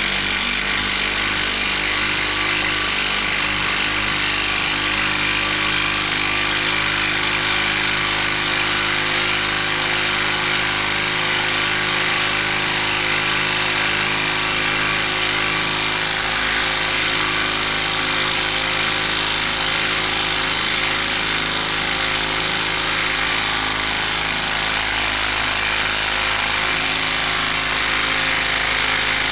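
Milwaukee M12 2462-20 brushed 12-volt impact driver hammering without a break as it drives a 4.5-inch lag screw into a wooden log, its impact mechanism working under heavy load at a steady level.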